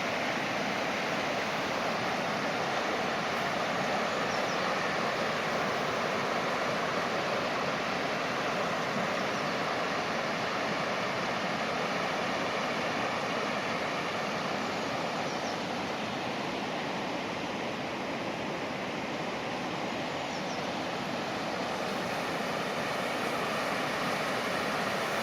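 Fast-flowing floodwater of the River Wharfe, rushing steadily.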